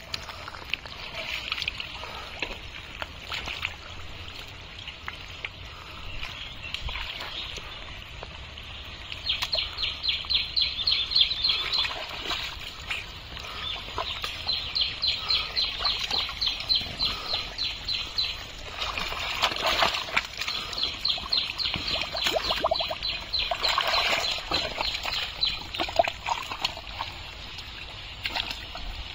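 Large fish thrashing in shallow muddy water, splashing and slapping in long runs of rapid beats, several a second, with short pauses between the runs.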